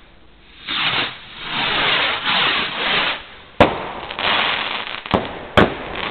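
Consumer fireworks going off: a run of loud hissing rushes from about a second in, then sharp bangs. The first and loudest bang comes a little past halfway, and two more follow close together near the end.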